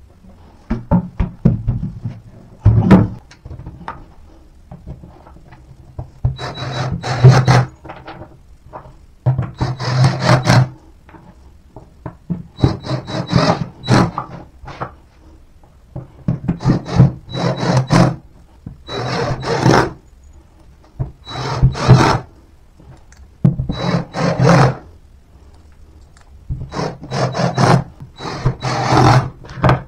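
Cordless drill driving screws into particleboard furniture panels: about a dozen short runs, each a second or two long, with the motor's steady hum and whine and the screw grinding into the board, separated by short pauses.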